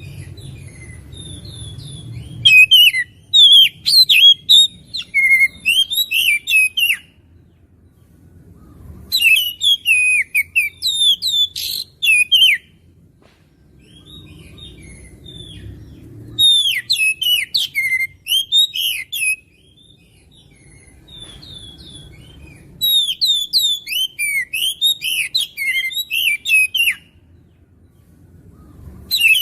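Oriental magpie-robin (kacer) singing in full voice: rapid, varied runs of whistles and chirps in four bouts of about three to five seconds each, with pauses of a few seconds between them.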